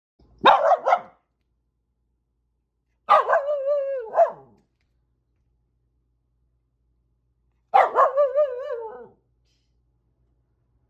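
A corgi barking in three bouts a few seconds apart. Each bout opens with a sharp bark and runs into a drawn-out, wavering note about a second long.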